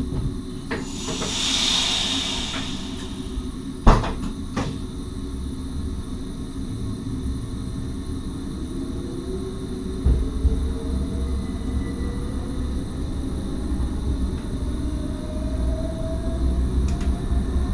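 Cab of an NS SGMM Sprinter electric multiple unit pulling away from a stop: a burst of air hiss about a second in, a few clicks and a sharp clunk about four seconds in, then from about ten seconds in a stronger low rumble and a slowly rising electric motor whine as the train gets under way.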